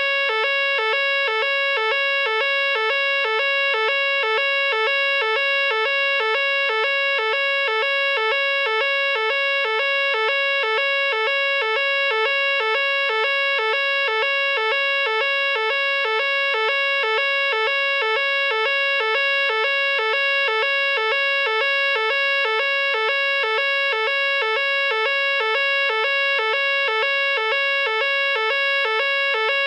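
Nugelec fire alarm sounder going off continuously: a loud electronic alarm tone that pulses evenly, about twice a second, without a break.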